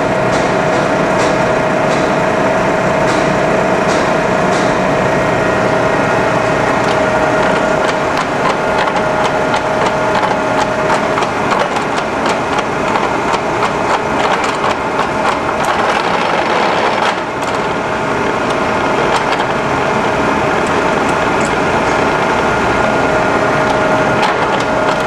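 Cincinnati No. 6 Dual Power vertical mill's power feed drive and gearing running steadily while the table feed rate is power-shifted from its slowest speed up toward its fastest. It makes a dense whirring gear noise with faint ticking and a held tone. The tone stops about halfway through as another, higher tone takes over, and the sound dips briefly about two-thirds of the way in.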